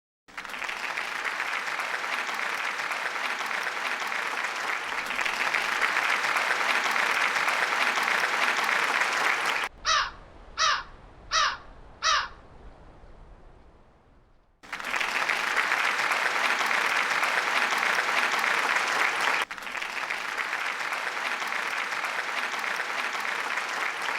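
Steady whirring noise from a noisy indoor air-conditioner blower motor, which the owner puts down to a bad bearing. About ten seconds in the whir stops and four short cawing calls come about two-thirds of a second apart. Then the whir returns and drops a little in level near twenty seconds.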